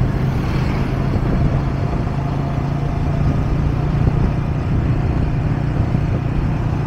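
Motorcycle engine running at a steady cruising speed, heard from the rider's seat as an even, low hum with road noise.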